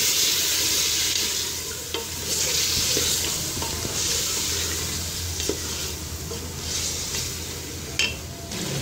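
Beef, tomatoes and spices sizzling in hot oil in a pressure cooker while a wooden spoon stirs them. The sizzle swells and fades with each stir, with a few light knocks of the spoon against the pot and a sharper one near the end.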